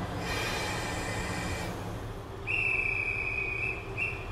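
Diesel railcar horn sounding at the station: a first tone lasting over a second, then a louder high steady blast of over a second and a short final toot, over the low rumble of idling diesel engines.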